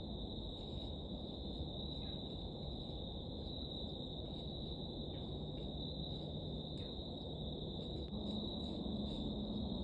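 Crickets trilling in a continuous high-pitched chorus over a low background rumble; a low steady hum comes in near the end.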